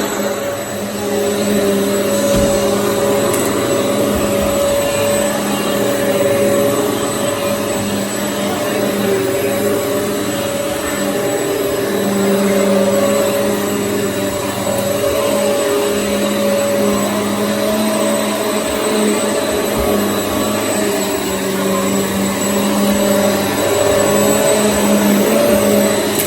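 Hoover EliteSwivel upright vacuum cleaner running continuously: a steady motor drone with a thin high whine, its tone and loudness shifting a little.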